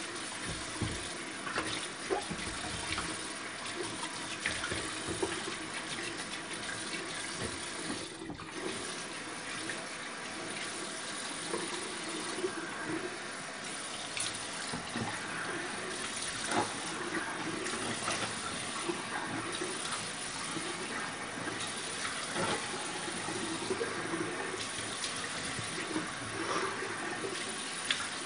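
Bathroom tap running steadily into a sink, with intermittent splashing as hands rinse leftover shaving lather off the face.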